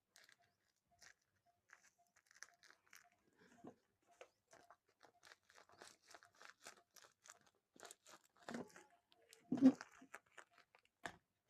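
Faint, intermittent crinkling and rustling of a small plastic packet being handled and torn open, with a couple of louder crinkles near the end.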